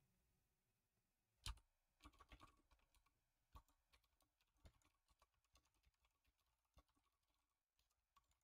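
Faint typing on a computer keyboard: an irregular run of key clicks that begins about a second and a half in, the first click the loudest.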